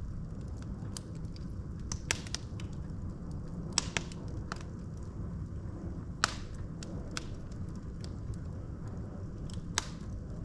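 Wood fire in a fireplace: burning logs crackling over a steady low rumble of flame, with sharp pops now and then, the loudest about two, four, six and ten seconds in.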